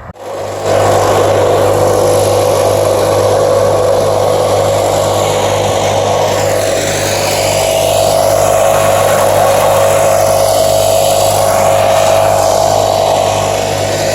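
A small engine-driven machine running steadily at high speed, its steady hum under a loud hiss, starting abruptly about half a second in.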